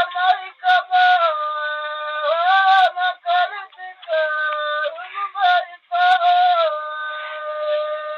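Bagheli birha folk song: a solo voice holds long, ornamented notes that bend up and down between short syllables. The recording is thin, with no highs.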